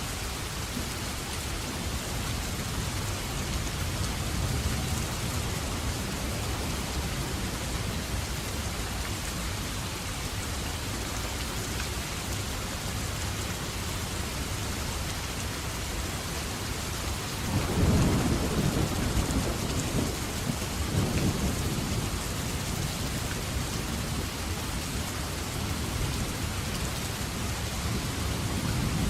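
Steady rain falling, with thunder rumbling low beneath it. A louder roll of thunder comes in suddenly about two-thirds of the way through and rumbles on for a few seconds.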